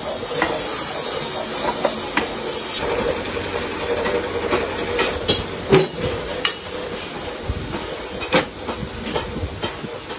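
Hiss in the first few seconds, then a series of sharp metal knocks and clinks as a freshly cast pan and the heavy parts of its mold are handled, over a steady hum.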